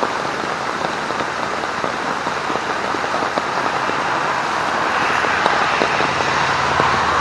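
Heavy rain falling on a military poncho rigged as a tarp overhead, a dense hiss of drops. From about halfway through, road traffic grows louder under the rain.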